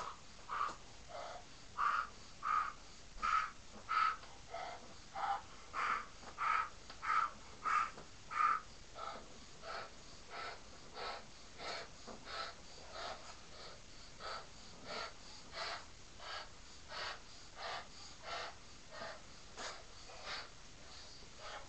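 Quick, regular puffs of air, about three every two seconds, going into a large latex balloon as it is inflated. The puffs are louder and sharper at first and grow softer after a few seconds.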